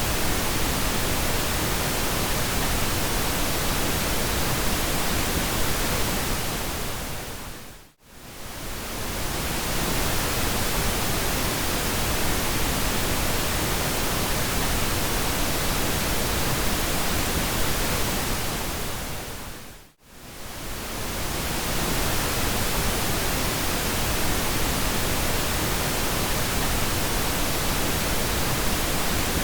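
Steady pink noise, an even hiss across low and high pitches. It fades smoothly down to silence and back up twice, about eight and twenty seconds in.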